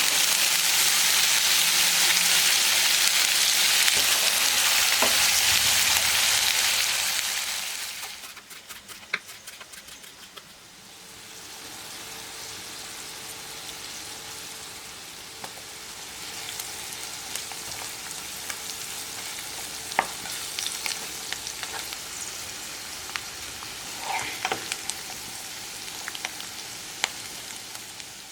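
Chicken liver fry sizzling in hot oil in a pan, being stirred. The sizzle is loud at first and drops away about eight seconds in. After that it carries on quieter, with occasional clicks and scrapes of the spoon against the pan.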